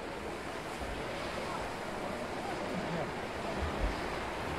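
Murmur of a crowd of fireworks spectators over a steady hiss, with a low thump near the end.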